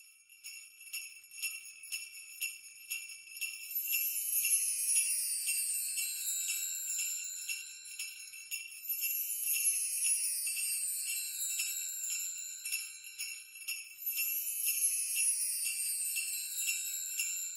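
Sleigh bells jingling in a steady beat, with a falling, glittering chime sweep repeating about every five seconds.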